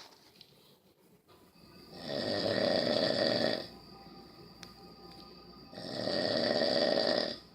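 Snoring: two long snores about four seconds apart, each lasting just under two seconds.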